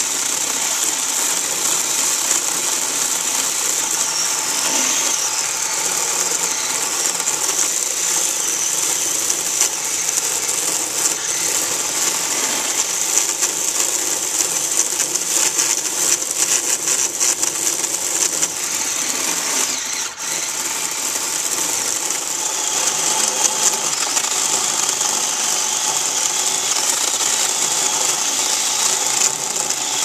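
Black & Decker battery-powered electric chainsaw running steadily as it cuts through a fallen tree limb: a motor whine with chain rattle, dipping briefly about two-thirds of the way through.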